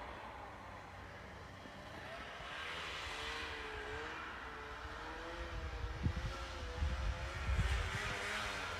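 Yamaha Phazer snowmobile engine running at some distance, its note wavering up and down as it is ridden. It swells louder about three seconds in and again near the end, with low thumps from about six seconds.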